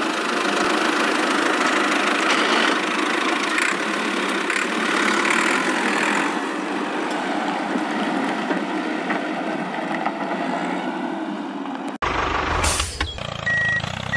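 Steady engine running sound, laid over a model tractor driving. About twelve seconds in it cuts off sharply and gives way to a deeper engine rumble with a brief hiss, and regular beeps begin near the end.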